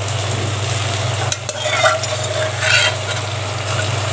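Frying onions and tomatoes sizzling in hot oil in a non-stick pan as boiled chicken pieces are spooned in from a pressure cooker, with the sizzle flaring briefly as the pieces land and the spoon moves. A steady low hum runs underneath.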